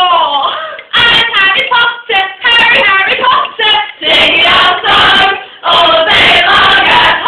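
Several young women's voices singing a rhythmic a cappella chant in short repeated syllables, overlapping in a round. The phrases break off briefly a few times.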